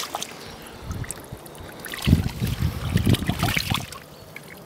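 A carp splashing and flapping in a landing net as it is tipped into a keepnet, water sloshing around it, loudest for nearly two seconds from about two seconds in.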